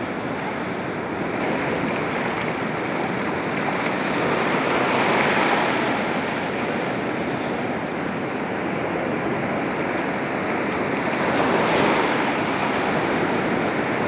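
Ocean surf washing up the beach in a steady rush, swelling a few times as waves break and wash in.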